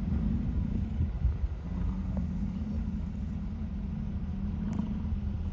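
A car's engine running steadily, heard from inside the cabin as a low rumble.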